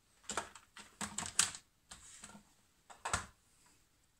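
Hard plastic clicks and knocks as the lid and parts of a hand blender's chopper bowl attachment are handled and fitted together, about a dozen sharp clicks in irregular clusters. The blender motor is not running.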